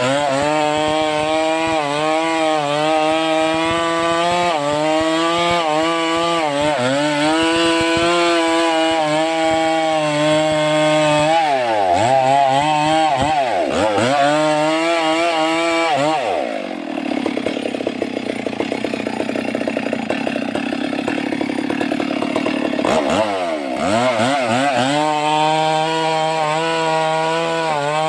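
Stihl MS 382 two-stroke chainsaw running at high revs, likely cutting wood, its revs dipping and recovering several times. A little past halfway it drops to idle for about seven seconds, then revs back up.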